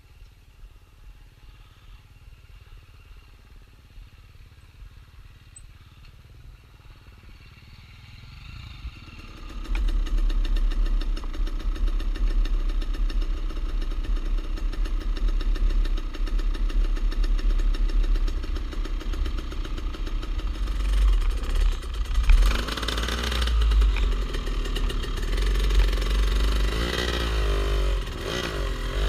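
Dirt-bike engines. For the first several seconds a faint, distant motorcycle engine is heard. About a third of the way in, a close dirt-bike engine comes in loudly, running and revving up and down.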